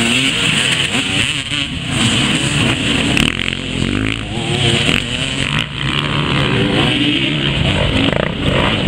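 Several off-road dirt bike engines revving, their pitch rising and falling over and over as the bikes pass.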